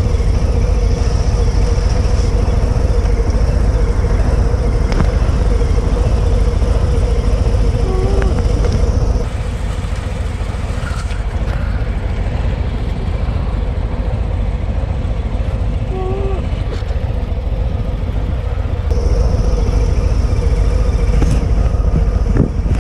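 Harley-Davidson Milwaukee-Eight 117 V-twin motorcycles running, a heavy low rumble. The sound changes suddenly about nine seconds in, dropping a steady mid-pitched tone and getting somewhat quieter, and the tone returns about nineteen seconds in.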